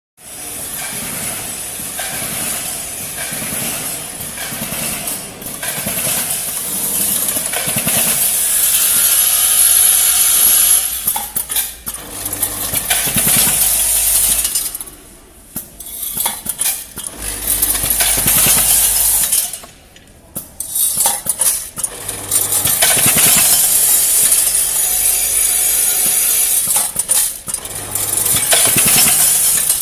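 SPM-25 screw-packaging machine running: a continuous metallic rattling and clinking of self-tapping screws being fed, counted and dropped. The sound drops away briefly twice, about halfway through.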